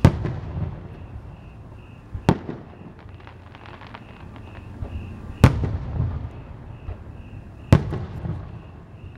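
Aerial firework shells bursting: four sharp booms, about two to three seconds apart, each trailing off in a low rumble.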